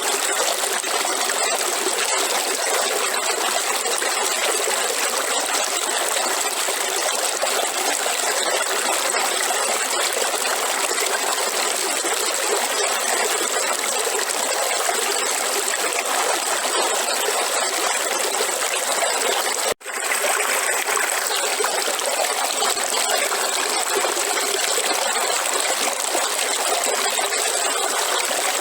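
River water flowing and trickling steadily. There is a momentary dropout about two-thirds of the way through.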